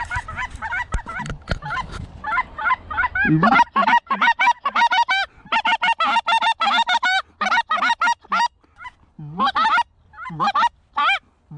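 Geese calling: a rapid, overlapping run of short honks that break in pitch, pausing briefly and starting up again near the end.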